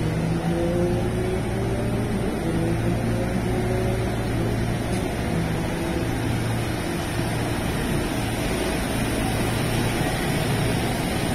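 JR West 225 series electric train standing at a platform with its doors open, its on-board equipment giving a steady low hum. A faint rising whine sounds over the first three seconds.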